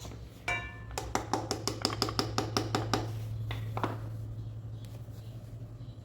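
Ratchet wrench clicking in an even run of about a dozen clicks, roughly six a second, after a short metallic squeak, then two single ticks, over a steady low hum.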